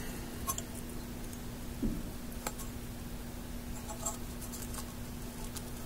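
Faint, scattered scratches and light ticks of the pins of a 6C33 vacuum tube being rubbed clean of corrosion by hand, with a soft knock about two seconds in, over a steady low hum.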